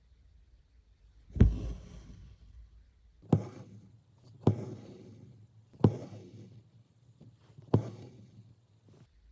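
Embroidery needle punching through fabric stretched tight in a wooden hoop: five sharp taps a second or two apart, each followed by a short rustle of the black embroidery thread being drawn through as the satin stitches are made.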